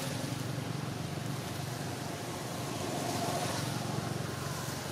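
Steady outdoor background noise: a low rumble with a fainter hiss above it, unbroken and even.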